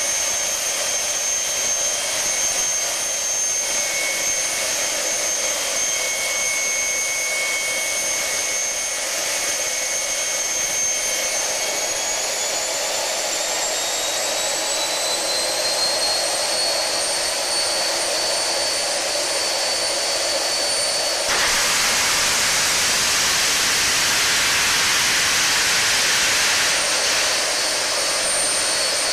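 Rolls-Royce Palouste gas turbine running with a steady high whine that rises in pitch a little under halfway through as the turbine speeds up. About two-thirds of the way in, a sudden louder rush of jet noise joins the whine, easing back slightly near the end.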